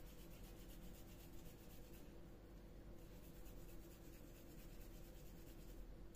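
Faint, soft rubbing of wet hands rolling a small ball of raw minced-meat mixture between the palms, over a low steady hum.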